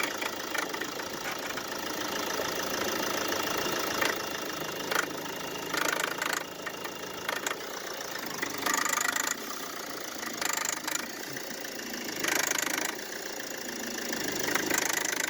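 Mercedes Vito's OM646 four-cylinder diesel running cold with a rattling knock. Short, louder rattles come every second or two. The rattle is the cold-engine fault later traced by stethoscope to the air-conditioning compressor clutch and its mounting.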